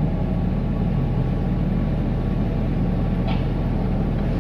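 Steady low rumble of a Ford F-250 Super Duty pickup heard from inside its cab while it drives: engine and road noise together.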